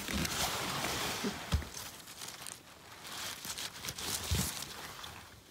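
Rustling and crinkling handling noise, loudest in the first second and a half, with two dull thumps, one about a second and a half in and one about four seconds in.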